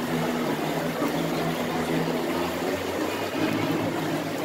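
Waterpark crowd ambience at a wave pool: a steady wash of water noise with many indistinct voices.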